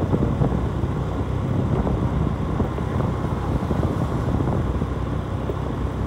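Motorcycle being ridden along the road: steady engine and wind noise.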